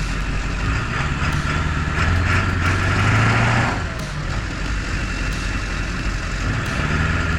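Truck engine running at idle, its note swelling under light throttle for about two seconds a couple of seconds in and again near the end.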